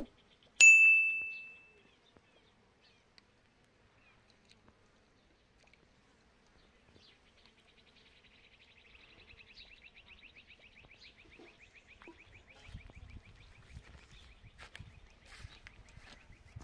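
A single metallic ding about half a second in, ringing for about a second. From about seven seconds on, a flying insect buzzes with a fine, rapid pulsing that grows louder, with faint low knocks near the end.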